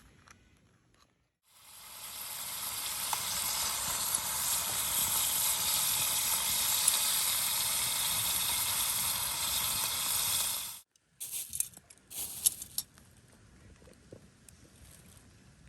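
A loud, steady hiss that builds up over about a second, runs for about nine seconds and cuts off suddenly, followed by a few light clicks.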